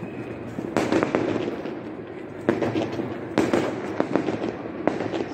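Firecrackers and fireworks going off: a dense, unbroken run of bangs and crackling, with louder volleys about a second in and again around two and a half and three and a half seconds.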